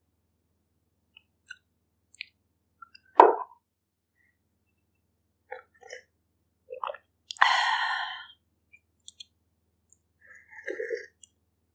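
Close-miked eating sounds: scattered mouth clicks and chewing noises, with a sharp click about three seconds in and a longer noisy mouth sound lasting about a second, a little past halfway.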